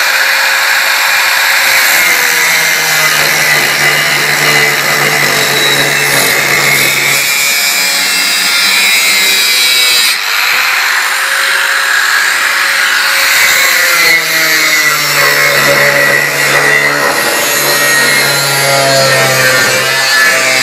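Angle grinder cutting into the rusty sheet-steel chassis plate of a garden tractor, running continuously. Its motor whine sags and recovers several times as the disc bites into the metal.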